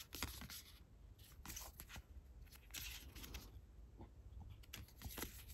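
Faint, irregular soft scrapes and clicks of glossy photocards being flipped through by hand, card edges sliding over one another.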